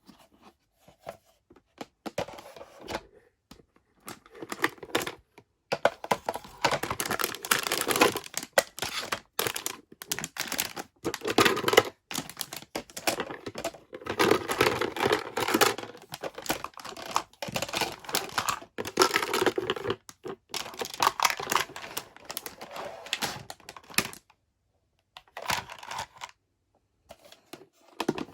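Toy packaging being unwrapped: plastic crinkled and torn, with a rapid patter of small clicks and taps from handling the pieces. It comes in bouts separated by short pauses.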